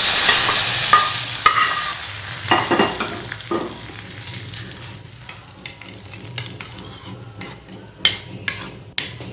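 Hot tempering oil with mustard seeds, curry leaves and a dried red chilli poured into a bowl of whisked curd. It gives a loud sizzling hiss that fades over about four seconds, then a spoon stirs the curd with light clinks against the bowl.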